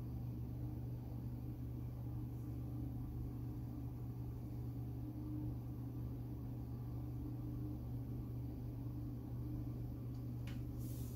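Steady low hum of a running appliance with a light hiss, with a brief faint rustle near the end.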